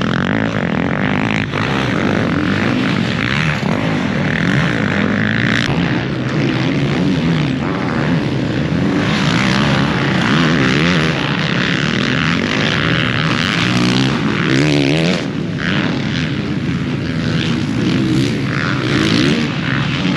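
Motocross bike engines running on a track, revving up and down continuously as the bikes accelerate and back off.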